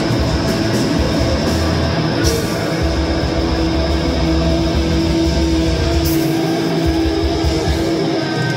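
Live rock band playing loud, with electric guitar, bass guitar and drums, and two sharp crashes about two and six seconds in.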